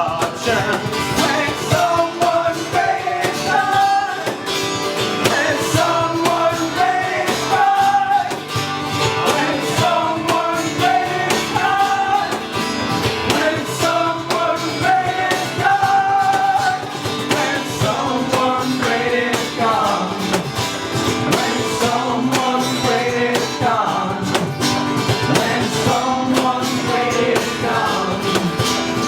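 Live band playing a song, with guitar and a melody line over a steady accompaniment.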